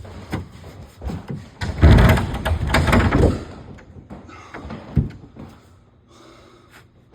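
A heavy old refrigerator being pushed back into place, scraping and rumbling across the floor for over a second about two seconds in, with several knocks and thuds around it.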